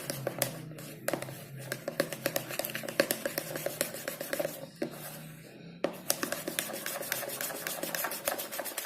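A stirrer scraping and ticking rapidly against a container as white glue, clear glue and water are stirred together into a slime base, with a short break about five and a half seconds in.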